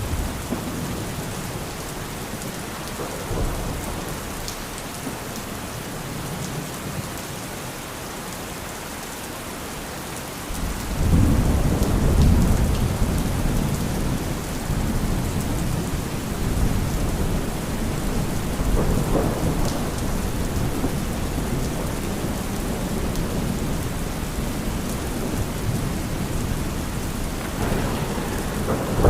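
Steady rain falling with rolling thunder: a deep rumble builds suddenly about ten seconds in and rolls on for many seconds, with smaller rumbles near the start and near the end.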